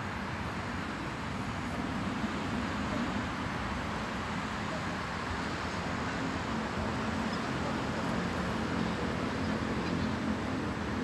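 Steady hum of distant road traffic.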